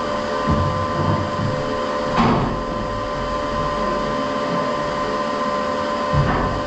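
A steady mechanical hum, holding a couple of fixed tones over a hiss, runs through. Over it come knocks and clunks of work inside a steel boat hull, with one sharp knock about two seconds in.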